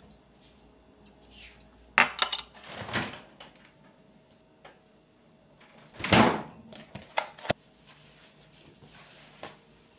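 Kitchen handling noise: a glass bowl and chopsticks set down on a stone countertop, a refrigerator door worked, and a plastic food container put down. It comes as a few separate knocks and clatters, loudest about two and six seconds in, with smaller clicks just after.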